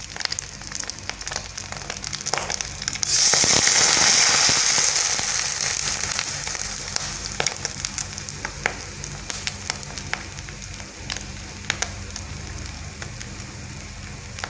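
An egg is frying in hot oil in a wok, crackling and popping. About three seconds in, a sudden louder sizzle starts and then slowly dies back down to scattered pops.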